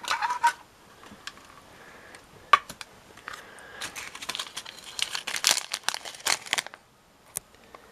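A few sharp clicks of a clear plastic parts drawer being pulled out and set down, then the crinkling of a metallised anti-static bag being handled, densest from about four to nearly seven seconds in.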